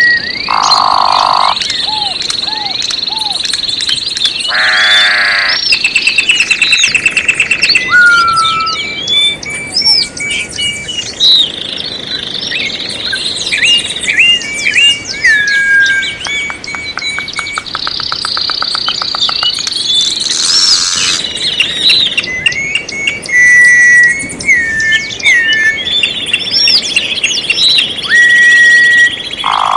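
Several songbirds singing and chirping at once: a dense mix of short whistles, rising and falling chirps and long held high notes, with a fast trill partway through.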